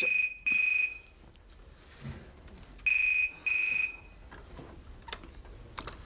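Landline telephone ringing with a steady electronic tone in the British double-ring pattern: two short rings, a pause of about two seconds, then two more.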